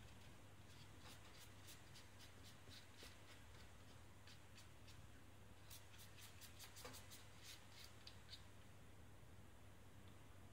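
Faint light scratching and ticking of a thin metal rod worked against a small plastic mold part, in irregular runs, over a low steady hum.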